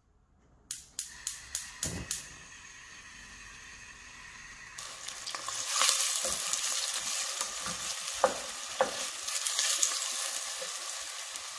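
Chopped onions starting to sizzle in hot oil in a stainless steel pot, stirred with a wooden spoon. A few sharp crackles come near the start, and the sizzle grows louder about five seconds in, with a couple of knocks of the spoon against the pot.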